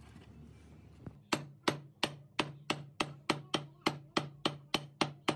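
Steady hammer blows on metal, starting about a second in: about fourteen quick, even strikes at roughly three a second, each with a brief ringing tail.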